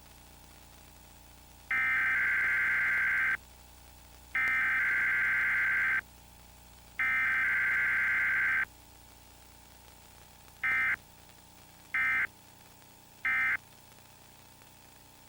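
Emergency Alert System test data bursts: three long bursts of harsh, buzzy two-tone digital data (the coded header), then three short bursts (the end-of-message code), with no attention tone or voice between them. A faint steady hum runs under the gaps.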